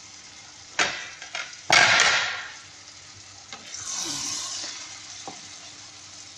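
Wooden spoon stirring sautéed diced bottle gourd (upo) in a stainless steel pot, the pieces sizzling as they are turned. There are a few knocks and scrapes of the spoon, the loudest rush about two seconds in and a softer hiss around four seconds.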